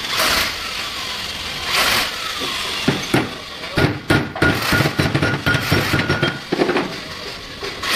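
Workshop noise: a run of irregular knocks and clatter, with a brief faint steady whine partway through, over a continuous background din.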